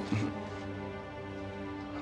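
Soft background music with sustained held tones.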